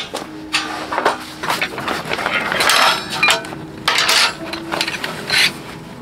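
Clattering and clinking of small hard objects being handled, a quick run of short knocks and clicks with a few louder rattles.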